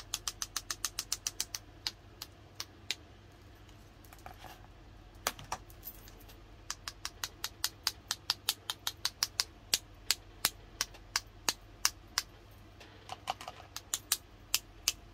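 Rapid sharp taps of a paintbrush being struck to flick paint splatters onto the surface, about four to five a second in runs with short pauses.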